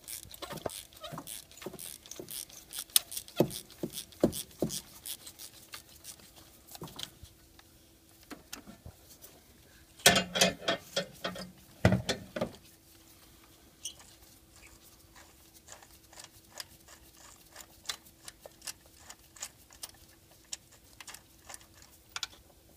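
Hand ratchet on socket extensions clicking in quick runs as a spark plug is worked loose and unscrewed from the engine, with a few louder knocks and rattles of the tool about ten to twelve seconds in. A faint steady hum lies underneath.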